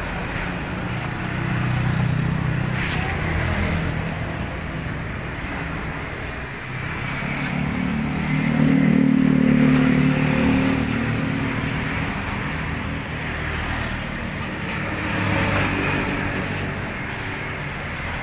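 Road traffic passing close by: engines of motorcycles and cars swell and fade as three vehicles go past, the loudest about halfway through, over a steady background hiss.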